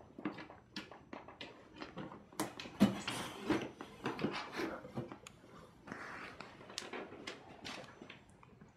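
Cats pawing at and moving inside a cardboard cat box: irregular knocks, scrapes and rustles of cardboard, the loudest knock about three seconds in.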